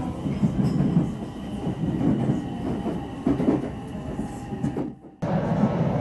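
Running noise heard inside a moving passenger train: the steady sound of wheels on rails with a faint high whine. It cuts out briefly about five seconds in, then resumes.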